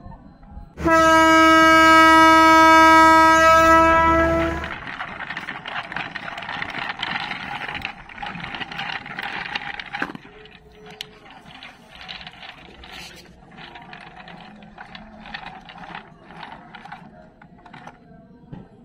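A train horn sounds one steady, held note for about four seconds, starting about a second in. A rattling, clattering noise follows for several seconds and then fades to faint ticking.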